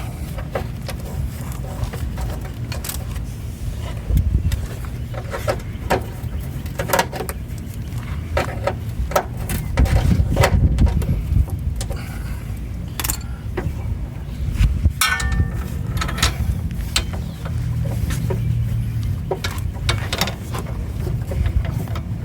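Scattered clicks, taps and metallic knocks of hand tools working on car brake hose fittings, with a brief metallic ring about fifteen seconds in, over a steady low rumble.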